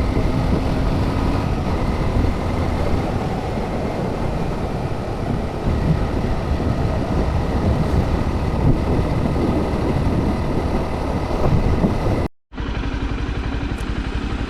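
Honda CBR motorcycle engine running while riding, with wind rushing over the action camera's microphone. About twelve seconds in, the sound cuts out for a moment and comes back as a steadier engine sound with an even pulse.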